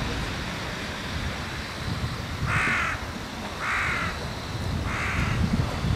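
A crow cawing three times, about a second apart, starting about two and a half seconds in, over a low steady rumble.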